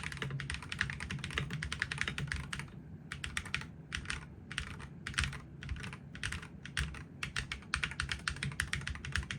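Typing on a GravaStar Mercury V75 Pro SE, a full-aluminium 75% keyboard with Hall Effect magnetic switches: fast runs of keystrokes, slowing to single spaced presses about three to five seconds in, then fast again.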